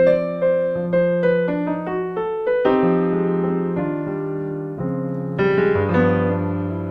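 Piano keyboard playing held chords with inner notes moving stepwise above and within them, changing to a new chord twice.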